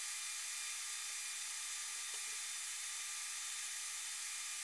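A microwave oven running steadily while it heats a cup of water: an even hum with a high whine and faint steady tones.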